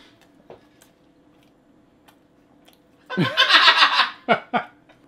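A man chewing quietly, with faint mouth clicks. About three seconds in he lets out a loud wordless vocal outburst lasting about a second, followed by two short breathy sounds.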